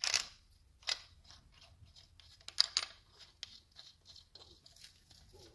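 Irregular sharp metal clicks and clinks of a hand wrench tightening the camshaft bearing cap bolts on a ZMZ-406-family cylinder head. The loudest clicks come at the start, about a second in, and as a close pair a little before the middle.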